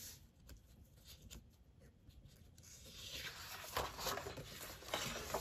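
Paper pages rustling and sliding as they are handled and lifted off the discs of a disc-bound planner, with a few soft clicks. The rustle swells in the second half.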